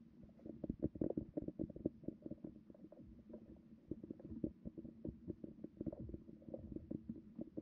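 Irregular muffled knocks and low rumbling picked up underwater beneath the ice, over a steady low hum; the knocks crowd closer together about a second in.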